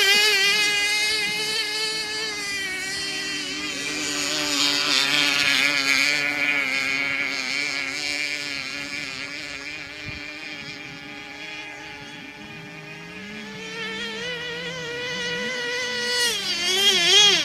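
Small nitro glow outboard engines (OS 21XM, 3.5cc) on radio-controlled F1 tunnel-hull racing boats, running at high revs with the pitch wavering up and down as the boats turn. The sound fades as they run farther off in the middle and grows louder again near the end as they come back close.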